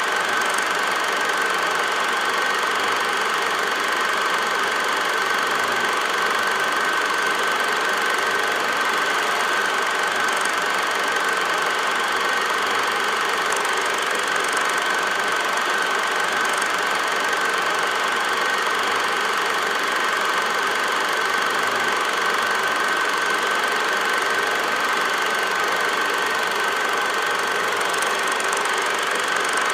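Steady mechanical whir of an 8mm film projector running, with a constant high-pitched whine through it.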